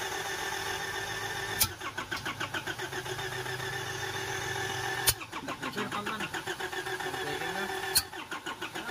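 Starter motor cranking the Isuzu Trooper's 4JX1 four-cylinder diesel in a fast, even rhythm with a steady whine, without the engine catching during a hard-start attempt. Three sharp clicks break in at intervals.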